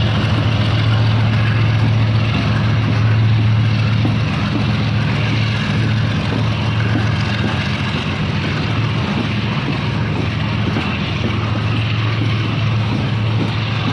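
Freight train of hopper wagons rolling past on the rails, with the steady low drone of a diesel-electric locomotive pulling away under it and faint ticks of the wheels over the track. The sound eases slightly toward the end as the locomotive draws away.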